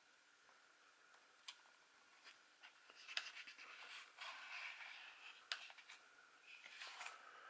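Faint scratching and rubbing with a few sharp clicks: fingers handling the plastic chassis and wiring of a 1/10-scale RC truggy. It starts with one click, and the rubbing picks up about three seconds in.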